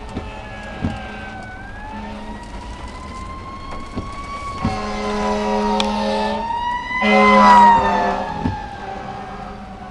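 Fire truck siren wailing, slowly rising and falling in pitch, with two long horn blasts from about five seconds in; the second blast is the loudest.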